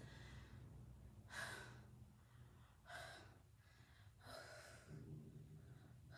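A woman breathing hard and gasping, about four heavy breaths spaced a second or more apart: winded after a set of sit-ups.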